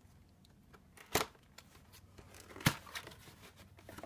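Cardboard packaging being handled: a printed cardboard slipcover slid off a cardboard box, with two sharp knocks about a second and a half apart and faint rustling between.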